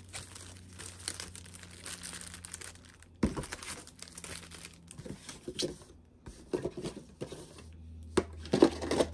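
Pokémon card booster pack's foil wrapper crinkling and tearing as it is handled and opened. The crackling is irregular, with a sharp snap about three seconds in and louder crinkling near the end.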